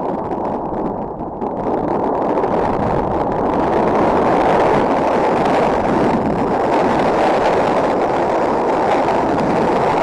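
Strong wind buffeting the nest camera's microphone: a loud, steady rushing rumble that builds about two seconds in.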